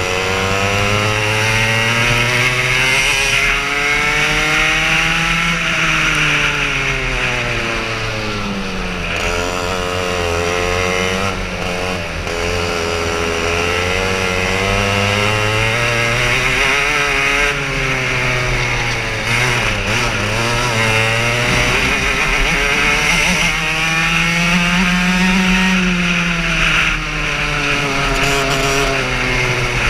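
Racing kart engine heard from on board, revving up along the straights and dropping off into the corners, its pitch climbing and falling several times.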